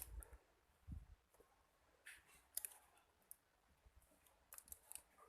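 Faint, irregular small clicks and taps of hand tools being handled and set down on a repair bench during soldering work on a phone battery, with the sharpest click at the very start.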